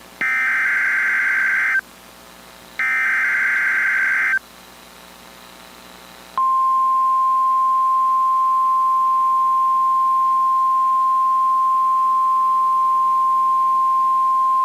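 Emergency Alert System SAME header: two short bursts of buzzy digital data tone with about a second between them. About two seconds later the steady single-pitch 1050 Hz NOAA Weather Radio warning alert tone sounds, signalling that a warning is about to be read.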